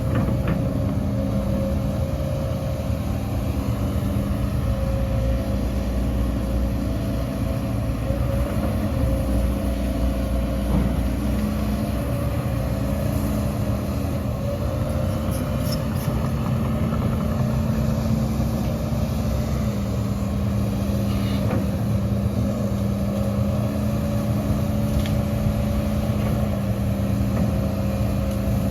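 Diesel engine of heavy earthmoving machinery running steadily under load, with an even low rumble and a steady hum.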